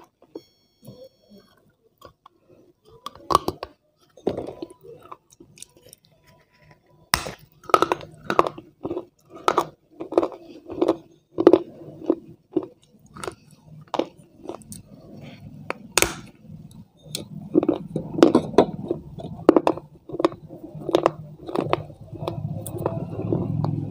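Close-up chewing of crunchy food picked up by a clip-on mic. A sharp crunch comes about seven seconds in and another around sixteen seconds, with rhythmic chewing strokes about twice a second between them. A low rumble sits under the chewing in the last several seconds.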